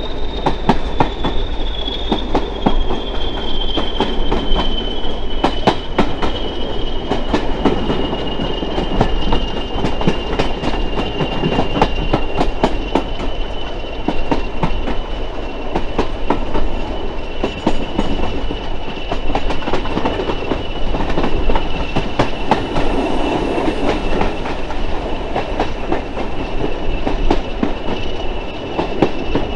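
Heritage railway train running on jointed track: a steady rumble with rapid, irregular clicks of wheels over the rail joints, and a thin high whine that slowly falls in pitch.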